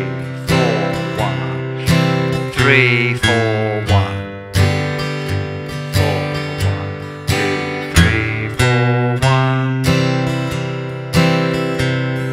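Steel-string acoustic guitar playing slowly: strummed C and G chords joined by single bass notes walking down the C major scale from C through B and A to G, then climbing back up to C. Each bar falls into strums on the first beats and single plucked bass notes on beats 3 and 4.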